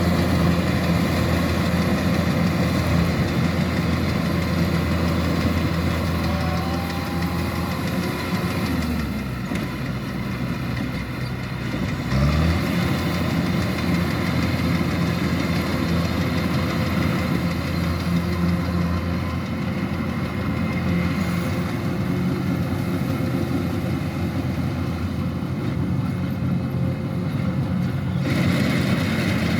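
Diesel engine of a Kubota DC-105X combine harvester running steadily under load. About nine seconds in the engine speed sags for a few seconds, then picks back up quickly near twelve seconds, with a mechanical clatter running throughout.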